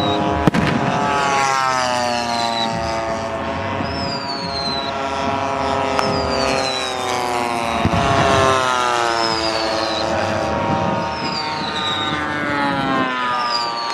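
Engines of radio-controlled scale WWII model warplanes flying past overhead, several engine notes sliding down in pitch as the aircraft pass. A sharp bang comes about half a second in and smaller bangs follow later, with a high whistle falling in pitch about every two seconds.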